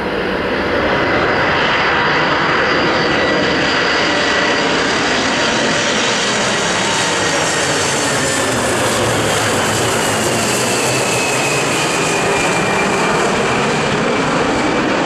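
Boeing 747-400 freighter's four jet engines at approach power as it passes low overhead on final approach: a loud, steady jet noise that swells in the first second, with a thin whine that falls in pitch as the aircraft goes by.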